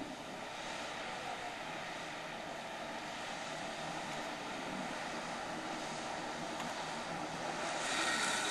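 An off-road 4x4's engine running steadily, with a louder rushing hiss coming in near the end.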